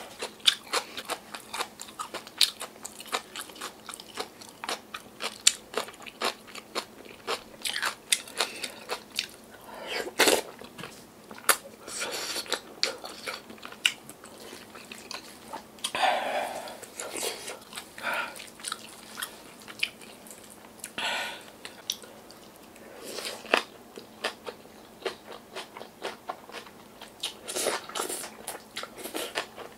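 Chewing and crunching a mouthful of yeolmu (young summer radish) kimchi bibimbap, with many short wet clicks and smacks of the mouth.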